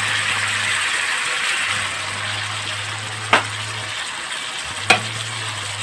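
Cubed pumpkin sizzling in oil in a wok, with two sharp knocks about three and five seconds in.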